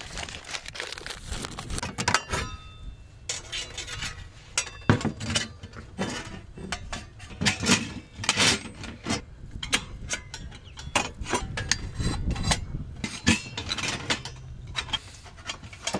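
Thin metal plates of a Skotti flat-pack portable grill clinking and clattering as they are slotted together by hand, a run of sharp taps, some with a short metallic ring.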